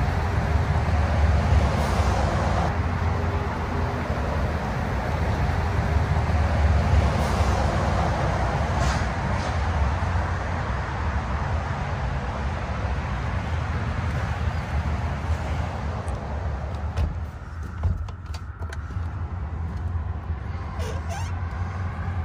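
Steady rush of traffic on a major highway close by, cars and trucks flying by under a constant low rumble, swelling as vehicles pass. The sound dips briefly near the end.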